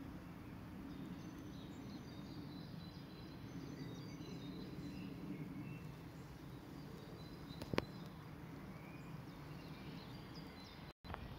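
Outdoor ambience: a steady low background noise with short, high bird chirps scattered throughout. A single sharp click about eight seconds in, and a brief cut to silence near the end.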